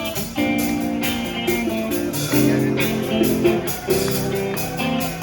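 Live rock band playing an instrumental passage of the song: guitars playing shifting chords over a steady beat.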